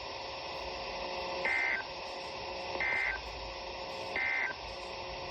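Three short EAS end-of-message data bursts, each a quick two-tone warble, evenly spaced about 1.3 seconds apart over steady weather-radio hiss. They mark the end of the tornado warning.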